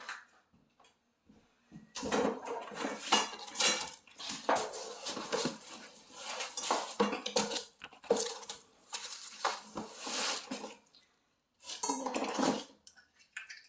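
Metal grow-tent frame poles and parts clattering and clinking together as they are handled, in a dense run of irregular knocks and a short burst near the end.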